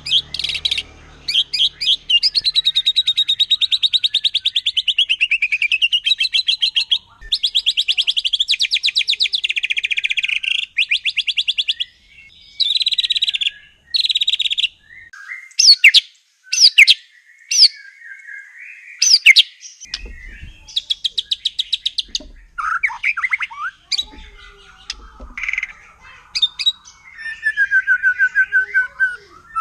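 White-rumped shama singing: long runs of fast, rattling repeated notes for the first twelve seconds or so, then a handful of sharp, separate whistled notes with short gaps, then looser varied phrases.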